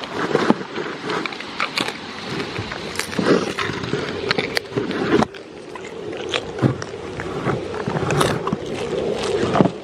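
Goats mouthing and rubbing their muzzles right against the camera microphone on a wooden table, a close scraping, rustling noise with frequent sharp clicks and knocks.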